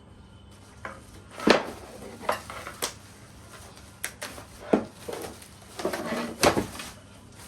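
Hard parts knocking and clinking together as they are handled: a string of about eight separate knocks and clatters, the loudest about a second and a half in, with a brief rattle around six seconds in.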